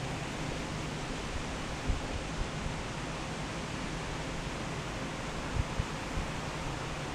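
Wind blowing steadily, a continuous even rush, with a few brief low thumps, once about two seconds in and twice close together near the end.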